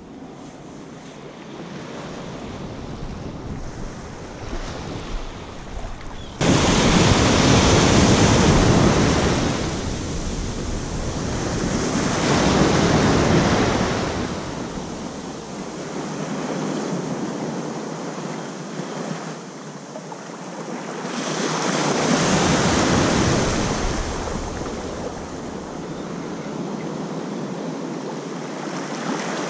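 Small ocean waves breaking and washing up a sandy beach, with wind buffeting the microphone. About six seconds in the sound jumps suddenly louder, then swells and fades every four to five seconds as each wave washes in and draws back.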